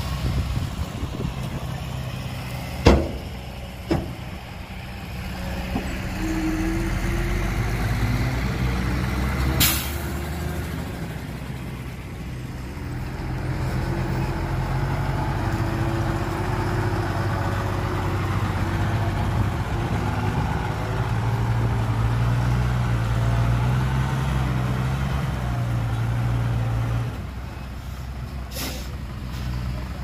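Heavy diesel engines of earthmoving machinery running, the engine note rising and falling as they work. Sharp knocks come about three and four seconds in, with another short sharp noise near ten seconds and near the end.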